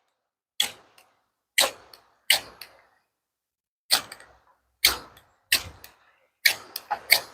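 Knife spine striking down a ferrocerium rod about ten times to throw sparks. Each stroke is a short, sharp scrape with a brief hiss, irregularly spaced and coming faster near the end.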